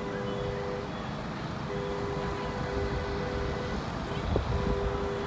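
A two-note train horn sounded in repeated long blasts, the two tones held together for about two seconds each time, with wind rumbling on the microphone underneath.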